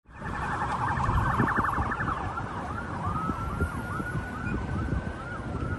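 Several police sirens sounding at once: a fast warble for the first two seconds, then slower repeated up-sweeps with a long, slightly rising tone over them. Beneath them runs the low rumble of road and wind noise from the moving car.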